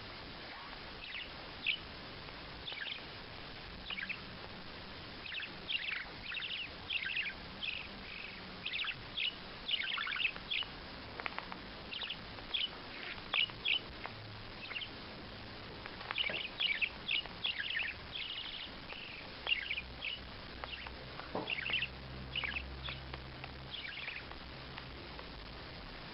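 A bird chirping: short, high calls, some single and some in quick runs of several, with brief pauses between them.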